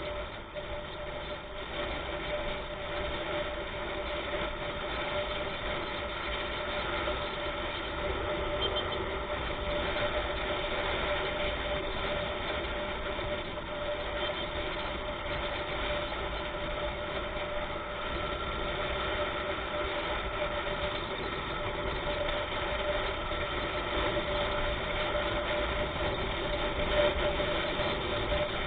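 Steady running of a vehicle engine with road noise while driving, holding an even pitch throughout.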